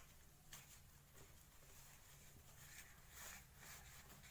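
Near silence, with faint rustling of a damp cotton cloth being unwrapped from a bundle of strained curd.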